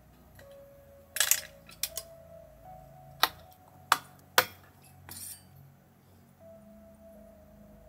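Sharp metallic clicks and clinks of small tools and parts being handled on a Mac mini logic board: a quick cluster about a second in, then single clicks at irregular intervals until about five seconds in. Soft background music runs underneath.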